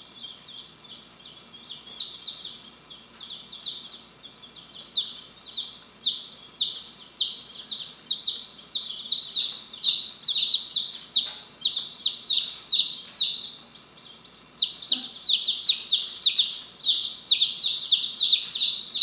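Light Brahma chicks peeping nonstop, many short falling cheeps overlapping. The peeping grows busier and louder about six seconds in, and louder still for the last few seconds.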